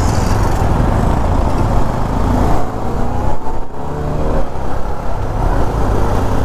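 Benelli TRK502 parallel-twin motorcycle engine and exhaust running deep and steady under way, with a brief dip a little over halfway and then a rising pitch as the bike picks up speed.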